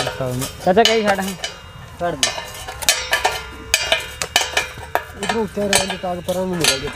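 Steel spanner clicking and clinking against the nuts and bolts of a water pump's pipe flange as they are tightened, a run of sharp metallic clicks, with people's voices talking in between.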